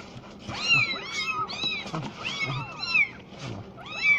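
Very young kitten mewing over and over: about ten short, high cries that rise and fall, while it is held for bottle-feeding.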